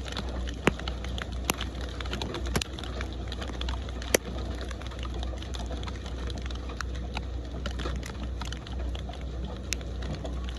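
Steady rain: an even hiss scattered with sharp ticks of single drops striking close by, over a constant low rumble.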